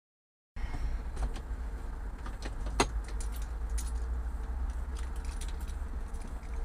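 Car interior noise picked up by a dashcam microphone while driving: a steady low engine and road rumble with scattered light clicks and rattles, and one sharper click a little under three seconds in. The sound cuts in abruptly about half a second in, after silence.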